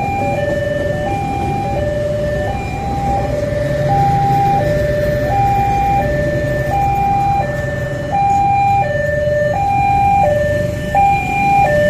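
Railway level-crossing alarm sounding its two-tone signal, a higher and a lower tone alternating about every 0.7 s, over the low rumble of passenger coaches rolling past on the rails.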